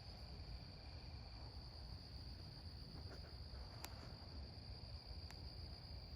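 Crickets chirping in a steady night chorus, one even high-pitched trill that never breaks, faint over a low background rumble, with a couple of small clicks.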